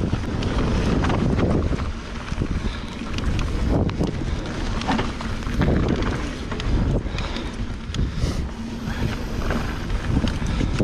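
Wind buffeting the microphone over the rolling rumble of a Santa Cruz Megatower full-suspension mountain bike's tyres on a trail descent, with frequent sharp clicks and rattles from the bike.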